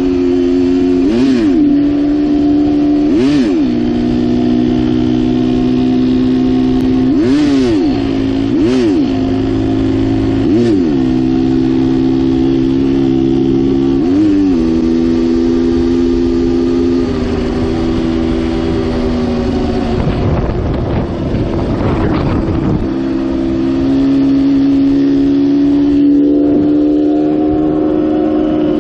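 Dirt bike engine running steadily at cruising speed, with several brief rises and falls in engine pitch in the first half. A few seconds of rushing noise cover it about two-thirds in, and it then settles at a slightly higher pitch.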